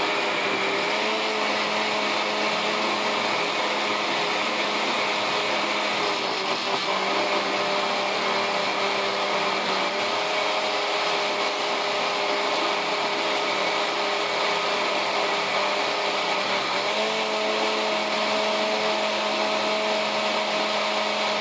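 Countertop blender running steadily as it purées a batch of green sofrito, a continuous motor hum whose pitch shifts slightly a few times and steps up about three-quarters of the way through.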